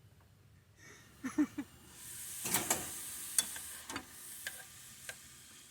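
Food sizzling faintly in a frying pan, with a few light clicks and clinks from about halfway through.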